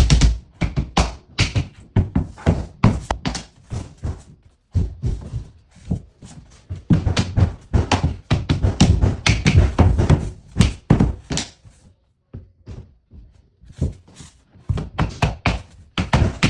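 Rapid runs of sharp knocks, several a second, from vinyl flooring planks being tapped into place, with a short pause about twelve seconds in.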